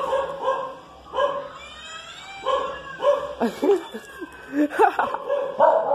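Dogs barking and yipping excitedly in a string of short calls, with whining, bending calls in the middle, reacting to a cat sound played from a phone app.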